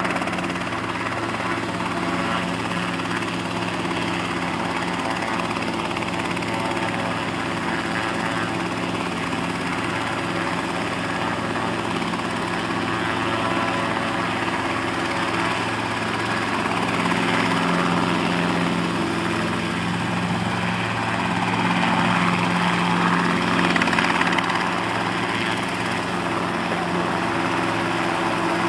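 Small helicopter hovering low, its rotor and engine running steadily with an even low hum, growing louder for a stretch in the second half.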